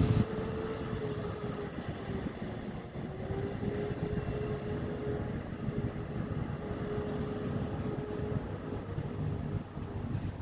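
Dockside container-loading machinery running with a steady hum and a constant, slightly wavering mid-pitched whine, over a low rumble with wind on the microphone. A single dull thump sounds right at the start.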